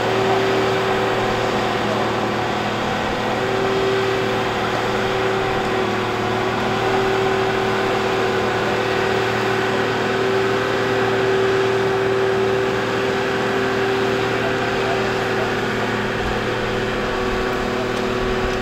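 Engine of a marine travel lift (mobile boat hoist) running steadily, with a steady whine over the engine sound that grows stronger a few seconds in.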